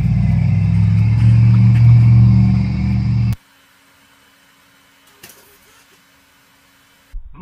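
A loud, steady, low drone, like a motor running, cuts off abruptly about three seconds in. After that there is only a faint steady hum and a single light click.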